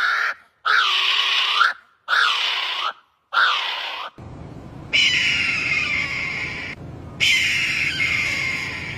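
A bird calling loudly three times, each call about a second long with short silent gaps between. A few seconds in, a different recording with a background hiss takes over, carrying two long calls that slowly fall in pitch.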